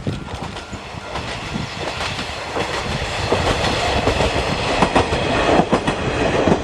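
KiHa 40 diesel railcar passing close by, its wheels clacking over the rail joints, growing louder toward the end.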